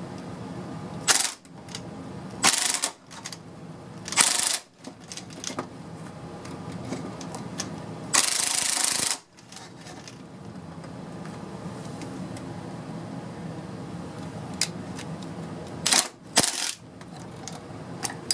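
Cordless impact wrench (Milwaukee M18 Fuel 2763-20) hammering in six short bursts, the longest about a second, as it drives a two-jaw puller's screw to draw a tack-welded wheel bearing race off a wheel hub. A low steady hum runs between the bursts.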